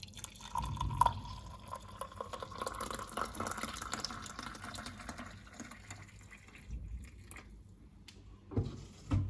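Boiling water poured into a cup: a steady splashing pour for several seconds that tails off, followed near the end by a soft knock or two.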